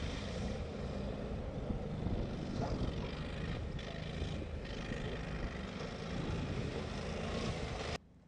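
Engine of an Argo Avenger amphibious eight-wheeled ATV running steadily as it climbs out of the water and drives over the grassy bank; the sound cuts off abruptly near the end.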